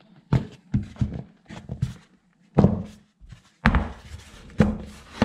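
Collapsible plastic-and-silicone pop-up bowl being handled and pulled open: a string of sharp clicks and thunks as its folding sides shift and knock into place.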